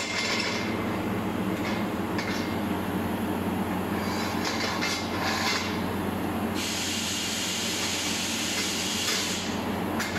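Steady drone and hiss of workshop machinery, with a few light clinks of sheet-steel barbecue grill panels being slotted together. The hiss grows stronger for a few seconds past the middle.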